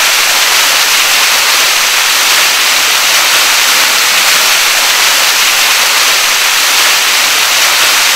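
Artificial curtain waterfall: a thin sheet of water falling down a stone wall and splashing into the pool below, heard close up as a loud, steady hiss.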